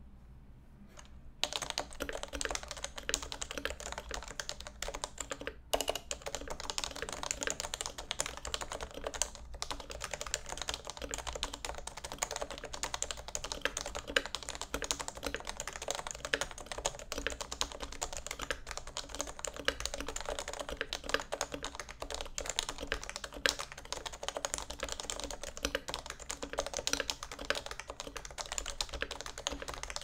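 Fast, continuous typing on a Topre Realforce 86U keyboard with variable-weight Topre switches (rubber domes over springs), unlubed housings and lubed stabilizers. The typing begins about a second and a half in and pauses briefly twice.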